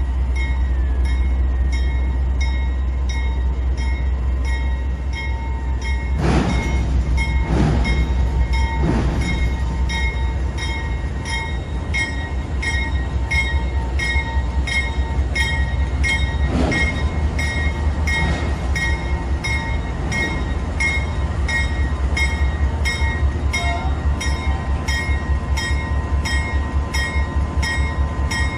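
A freight train rolling steadily past with a deep rumble and a regular run of wheel clicks, about two a second. Several heavy clanks stand out over it, three in the first third and one more past the middle.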